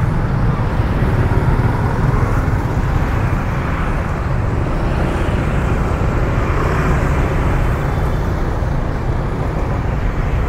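Road traffic on a city street: a steady, unbroken wash of vehicle noise with a strong low rumble.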